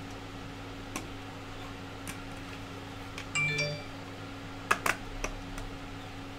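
Handling of 3D-printed plastic idler-body parts: light scattered clicks, a brief pitched tone about halfway through, then two sharp clicks in quick succession as the parts are fitted together. A steady electrical hum runs underneath.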